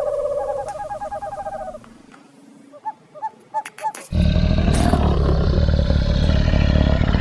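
A run of animal calls: a held pitched call that breaks into rapid pulses and dies away, a few short clicks, then about four seconds in a loud, low, rough call from a large wild animal.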